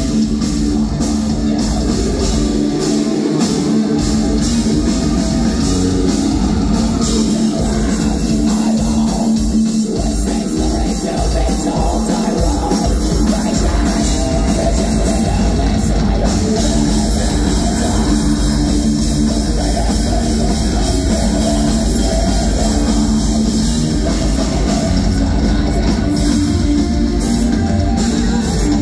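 A heavy metal band playing live at full volume: distorted electric guitars and a drum kit, with a woman singing over them.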